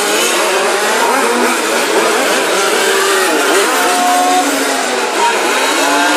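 Several 1:5 scale petrol RC Formula 1 cars racing, their small two-stroke engines overlapping and rising and falling in pitch as they accelerate and brake through the corners.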